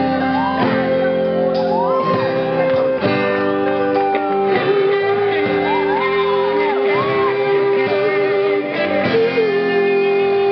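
Live band playing: electric guitars and drums, with singing voices over long held notes.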